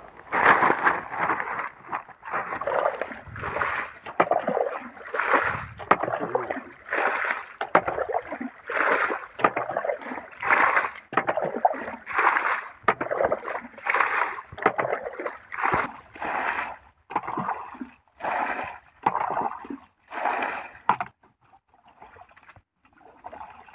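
Muddy pond water being bailed with a plastic bucket: a scoop-and-splash at about one a second as each bucketful is thrown out, stopping near the end.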